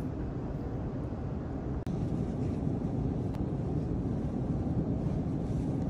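Steady low rumble of airport terminal background noise, with no clear single event, broken by a brief dropout a little under two seconds in.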